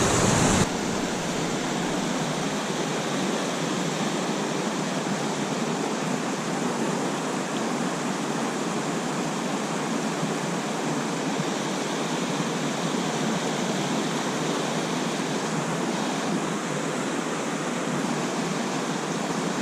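Steady rush of a mountain stream's flowing water. In the first second a louder, deeper rush cuts off abruptly and the even rush carries on.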